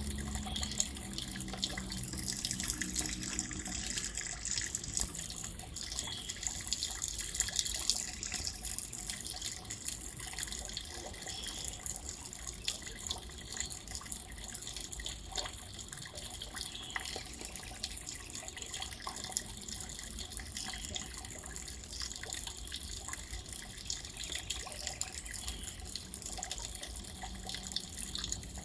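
Steady rainfall: an even hiss thick with fine drop clicks, keeping the same level throughout.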